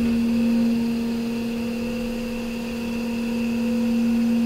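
Coil form bender's drive motor running with a steady electric hum, dipping slightly in loudness partway through.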